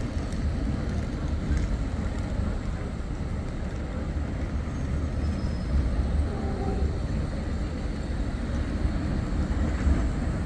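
Bombardier Flexity 2 tram rolling past at street level, a steady low rumble.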